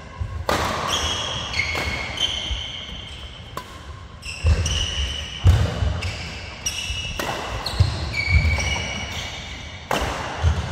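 A badminton doubles rally: a quick series of sharp racket-on-shuttlecock hits, with short high shoe squeaks and thudding footfalls on the court mat, in a large hall.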